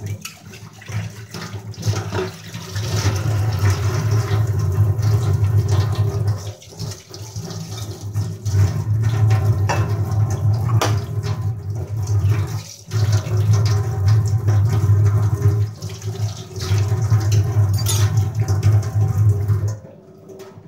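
Kitchen tap water running into a sink while steel utensils are rinsed, with clinks of metal dishes being handled. The flow dips briefly a few times and stops shortly before the end.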